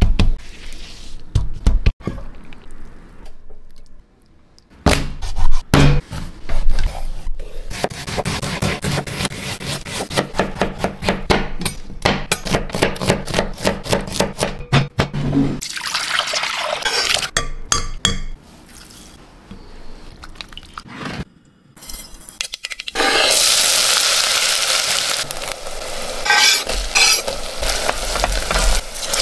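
A run of close-up kitchen sounds: hands handling a banana leaf, then a chef's knife slicing green chillies on a bamboo cutting board in quick, even strokes. Near the end comes a steady sizzle of chopped shallots and green chillies frying in a stainless steel pot.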